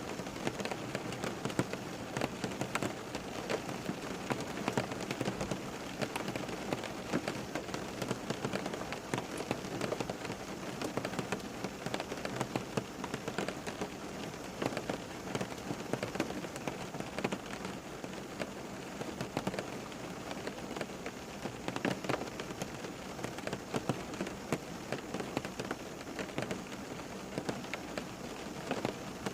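Steady rain falling on a hard surface, a dense patter of individual drops over an even hiss.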